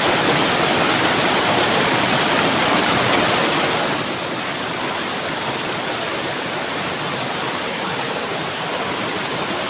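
Rushing river water: a steady wash of noise with no distinct splashes, a little quieter from about four seconds in.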